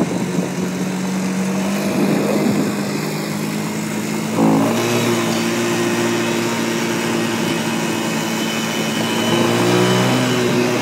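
A quad (ATV) engine running while riding, with a quick rev and a rise in engine pitch about four and a half seconds in, and another change in engine pitch near the end.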